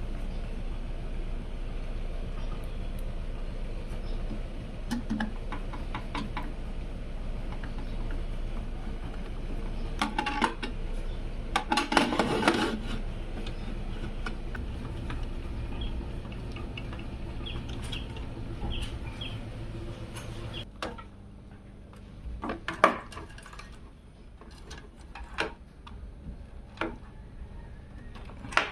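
Hard parts being handled: scattered clicks, taps and rattles, with a denser clatter about ten and twelve seconds in, over a steady low hum that stops about two-thirds of the way through.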